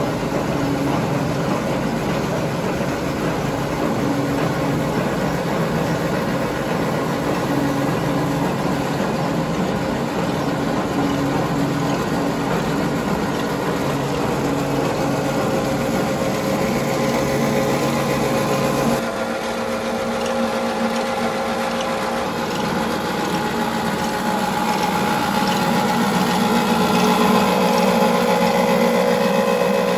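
Plastic recycling extruder and strand pelletizer running: a steady motor hum with machinery noise. Partway through, the hum shifts to a different set of pitches and grows a little louder near the end.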